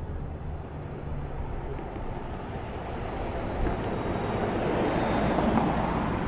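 A low rumble under a rushing noise that grows louder to a peak about five seconds in, then eases off.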